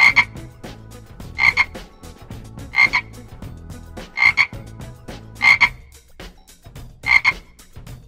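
A frog croaking repeatedly: six short calls, evenly spaced about a second and a half apart.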